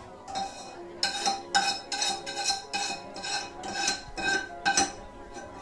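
Metal utensil clinking repeatedly against a ceramic serving dish, a dozen or so short ringing clinks at an uneven pace of two to three a second.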